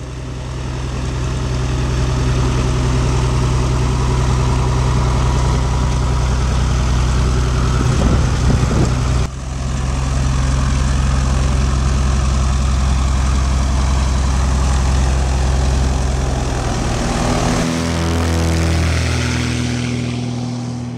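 Bearhawk light aircraft's piston engine and propeller running steadily at low power on the ground. At about seventeen seconds the engine note changes and the power comes up, and the sound eases as the plane moves off down the gravel strip.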